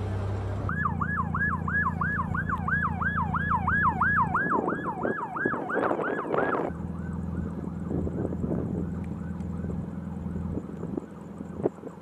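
Emergency vehicle siren in a fast yelp, its pitch sweeping up and down about three times a second over a steady low engine drone. A little past halfway it drops to a quieter yelp that fades out.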